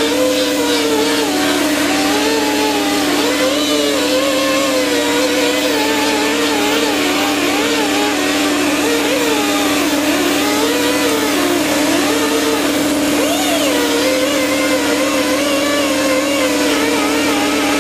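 Handheld power tool running continuously as it strips rust from a steel mower deck: a steady motor whine with a higher pitch wavering up and down over it as the tool is worked against the metal.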